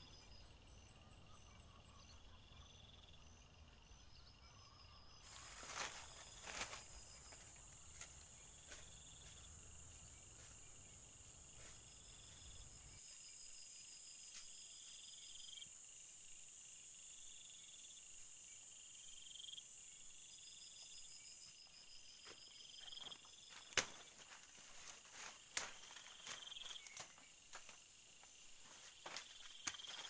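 Insects trilling steadily in the forest, some in repeated bursts. Footsteps crunch and snap in dry leaf litter and twigs, most often in the last third.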